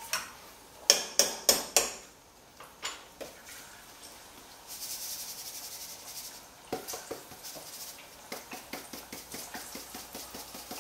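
A spoon knocks several times against the side of a pot while rice is being stirred. Then salt is shaken from a salt container into the pot: a brief grainy hiss of pouring salt, followed by a long run of quick light ticks as the container is shaken and tapped, the salt coming out slow.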